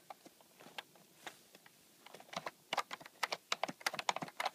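Typing on an AlphaSmart Pro's keyboard: a few scattered key clacks, then a quick run of keystrokes from about halfway through.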